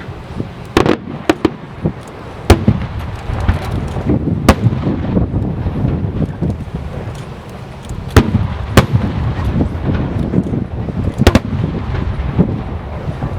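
Aerial fireworks bursting: sharp bangs at irregular intervals, a few seconds apart, over a continuous low rumble and crackle.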